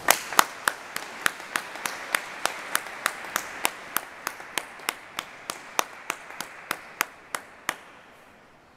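Audience applauding, with one set of loud, close claps standing out at about three a second; the applause dies away near the end.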